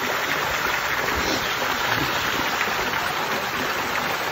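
Hot-spring water raining down from a mineral-crusted arch onto the pool's surface, a steady dense splashing close to the microphone.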